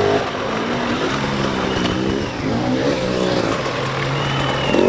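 Enduro dirt bike engine revving as it rides a wooden wall ramp, its pitch rising and falling through the middle and then holding steady near the end.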